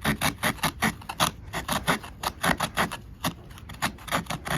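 Small folding multitool saw blade cutting wood in quick back-and-forth strokes, about five a second, rasping through the cut to make a notch.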